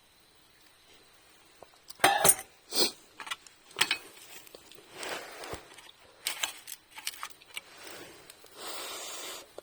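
Clinks, knocks and rustling of small metal gear being handled, starting about two seconds in, with a short steady hiss near the end.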